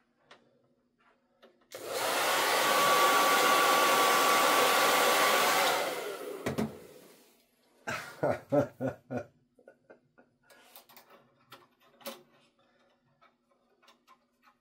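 Hair dryer switched on about two seconds in, blowing steadily with a high whine for about four seconds, then switched off and running down, heating the turntable's alloy platter to loosen it from its tapered spindle. About two seconds later comes a quick run of about seven knocks, then a few faint clicks.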